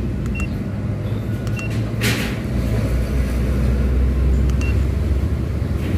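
Toyota Avanza's engine idling steadily, getting a little louder partway through. A few short, high single beeps sound now and then, and there is a brief hiss about two seconds in.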